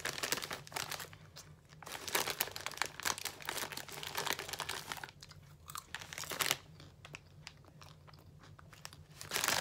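Someone chewing Smartfood white cheddar popcorn close to the microphone: crunching in clusters, easing off in the last third, with a louder burst just before the end.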